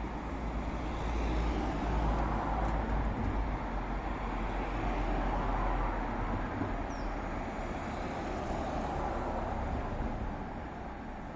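Road traffic noise from passing cars: a steady wash of tyre and engine noise with a low rumble, swelling about two seconds in and easing off near the end.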